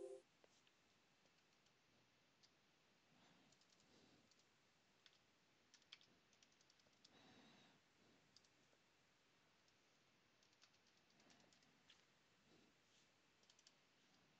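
Faint computer keyboard typing: scattered key clicks as a command is typed out.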